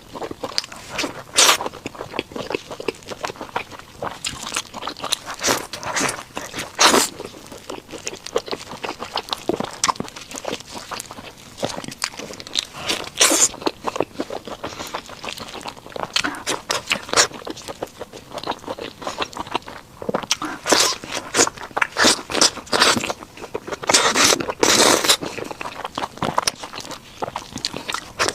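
Close-miked eating of a burger: biting and chewing, heard as irregular crunches and clicks.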